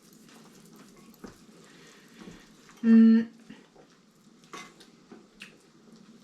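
Faint kitchen handling sounds, scattered small clicks and clatter while cooking. About three seconds in comes one short, steady hum from a person's voice, the loudest sound here.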